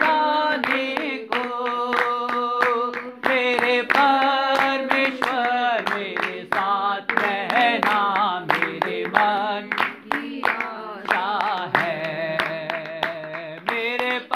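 Voices singing a Hindi Christian hymn, with steady hand clapping on the beat.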